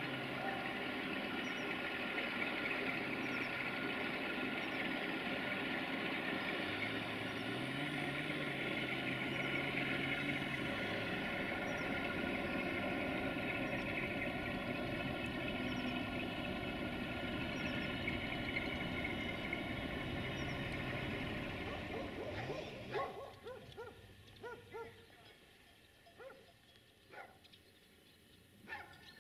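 CFR Class 060-DA diesel-electric locomotives running as they haul a freight train, with a steady engine note that rises briefly and falls back about a third of the way through. About three-quarters through the engine sound drops away and a dog barks several times.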